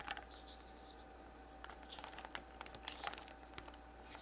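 Faint crinkling and scattered small clicks of a small plastic toy and its packaging being handled.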